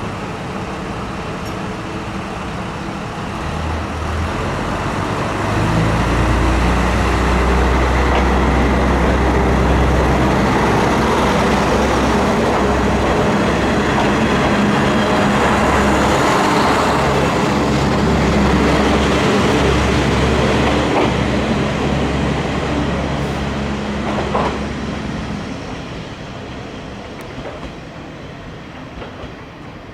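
A Kanto Railway Joso Line diesel railcar moving by, its diesel engine making a steady low drone along with the noise of its wheels on the rails. The sound builds over the first several seconds, holds loud, and fades away near the end.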